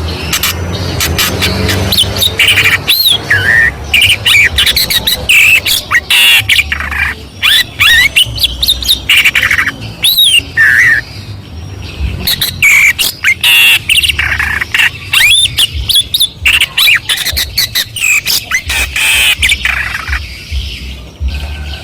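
Long-tailed shrike singing without a break in a rapid, varied medley of chirps, quick rising and falling whistles and sharp clicking notes. The song is packed with imitations of other birds, such as sparrows fighting, a canary and a lovebird.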